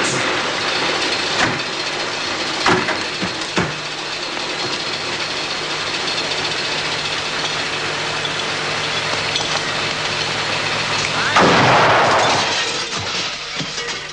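A vehicle engine running steadily under a constant rush of noise, with a few knocks in the first few seconds. About eleven and a half seconds in, a loud burst about a second long cuts across it: the blast of homemade firecrackers in a smoking hut.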